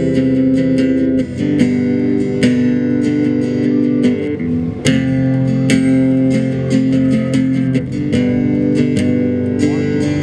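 Guitar playing the instrumental introduction of a song, picked chords changing every second or so.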